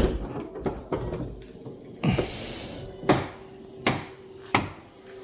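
Power liftgate on a 2015 Subaru Outback opening under its motor: a steady motor hum with a sharp knocking click repeating about every three-quarters of a second. The knocking is the fault being chased, which the owner suspects comes from the power strut motor or its sprocket gear, with the lift supports worn out.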